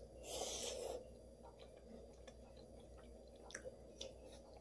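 Quiet eating sounds: a brief hiss of breath near the start, then faint scattered mouth clicks of chewing.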